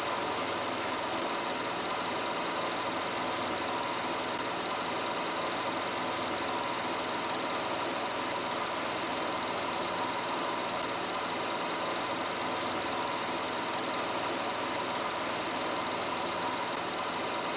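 Film projector running steadily, its mechanism making an even mechanical rattle.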